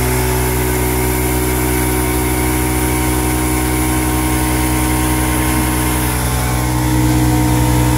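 Small electric air compressor with a red tank running steadily, powered through a 1500-watt inverter backed by a second battery; it has started and keeps running under its load, which the single battery alone could not manage. Slightly louder near the end.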